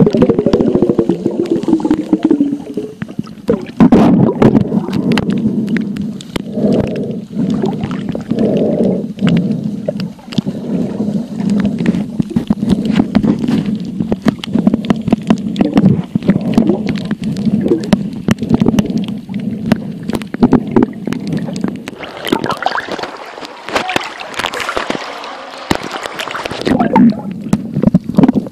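Muffled underwater noise picked up by a phone's microphone under the sea: low gurgling and crackling, turning brighter and hissier for a few seconds near the end.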